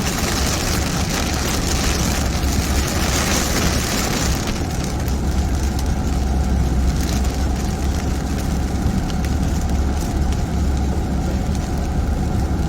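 Heavy rain on a moving car, heard from inside the cabin over a steady low engine and road rumble. The hiss of the rain drops off sharply about four and a half seconds in.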